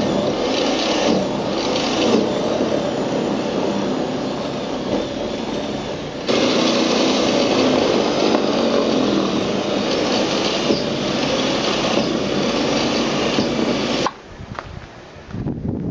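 Small snowblower running, a steady mechanical drone that jumps up in level about six seconds in and cuts off suddenly near the end.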